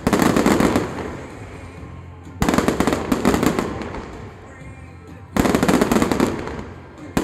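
Aerial fireworks shells bursting in three waves, near the start, about two and a half seconds in and about five and a half seconds in. Each wave is a sudden loud rattle of many rapid cracks that fades away over a second or two.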